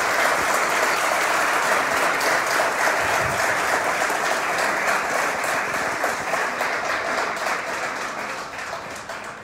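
Audience applauding: a room full of people clapping steadily, dying away near the end.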